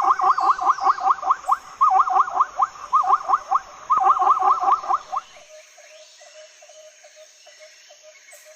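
Zebra calling: a rapid series of short, pitched yelping notes, about eight a second, in several bursts that stop about five seconds in. A much fainter quick pulsing follows.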